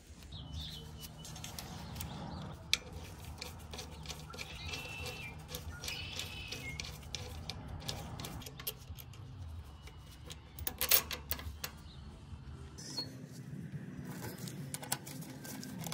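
Hand tools working a heavy battery cable ground strap: scattered sharp clicks and metallic clacks as it is cut with cable cutters and bolted on, with one loud click about three seconds in and a louder burst of clicks around eleven seconds in.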